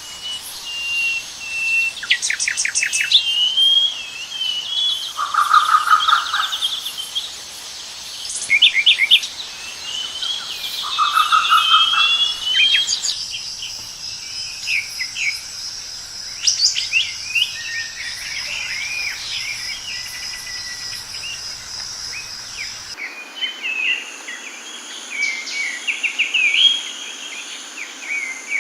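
Several wild birds singing and calling in turn: whistled phrases, quick trills and rising and falling chirps, with a lower, rapidly pulsed call twice in the first half. Around the middle a steady high drone sits under the birdsong, and the background changes abruptly near the end.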